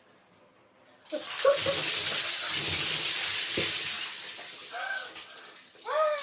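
Water rushing and splashing, starting suddenly about a second in, running loud for about three seconds, then fading. Near the end come a couple of short high voice-like cries that swoop up and down.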